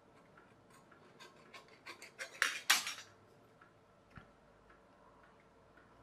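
Small scissors snipping thin tinplate cut from a spray-paint can: a run of crisp metallic snips that grows loudest between two and three seconds in, then a few sparse clicks.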